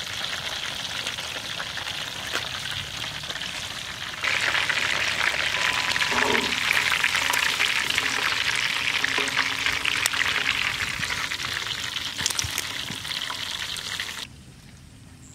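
Hot oil sizzling and crackling as whole chickens deep-fry in a wide pan of oil. The sizzle steps louder about four seconds in and drops away sharply near the end.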